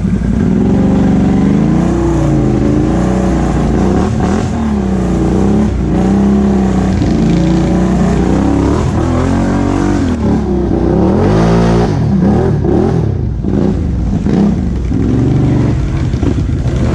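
Can-Am Outlander XMR 1000 ATV's V-twin engine with an aftermarket Big Gun exhaust, revving up and down as the throttle is worked on a muddy trail. There is a run of quick revs about two thirds of the way through.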